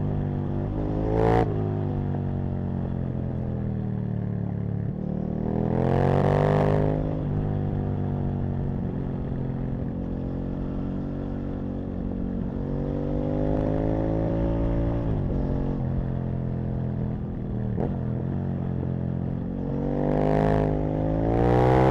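Aprilia RSV Mille's 998 cc V-twin engine under way, its revs climbing and dropping again and again as the throttle is opened and closed through the gears. A sharp click comes about a second in, and a loud rushing noise swells about six seconds in and again near the end.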